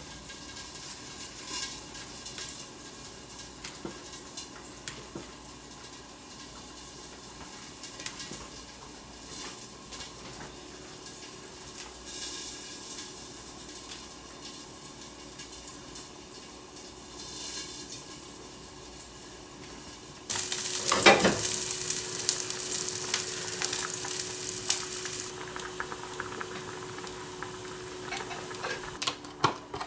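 Pan cooking: quiet stirring with scattered utensil clicks, then about twenty seconds in food goes into a hot pan with a clatter and sizzles loudly, settling into a steady sizzle.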